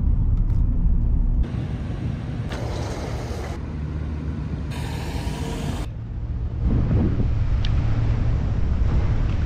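Car engine and road noise heard from inside the cabin while driving, cutting after about a second and a half to a run of short outdoor clips of steady low vehicle rumble, with abrupt changes in sound at each cut.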